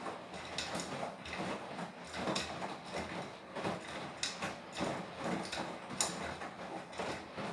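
Beko WTK104121W washing machine's drum tumbling a wet load of laundry, with a string of uneven swishes of clothes and water as the drum turns.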